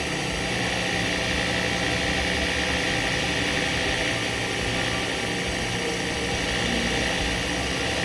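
Small milling machine running steadily with a whine, its cutter milling the worn radius off a steel catch part from a pistol's trigger mechanism.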